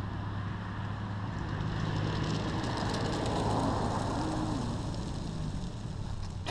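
A road vehicle passing by, its noise swelling to a peak about halfway through and then fading, over a steady low hum.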